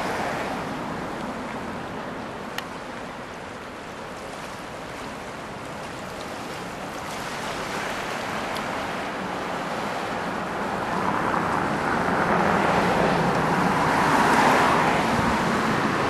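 Seashore ambience: a steady rushing hiss of small waves and wind. It eases off after the start and swells up over the last few seconds, with one sharp click a few seconds in.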